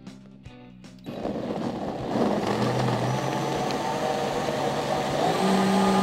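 Dynamic BlendPro commercial blender starting about a second in and running loudly as it blends a smoothie of frozen pineapple and mango with coconut milk and yogurt. Its motor note steps higher twice, a little after two seconds and again after about five seconds.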